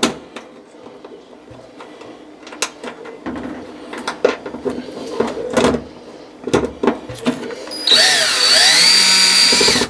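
Power drill driving a screw into the oven's sheet-metal panel: the motor whines loudly for about two seconds near the end, its pitch gliding up and down as the screw goes in. Before that, scattered clicks and handling sounds.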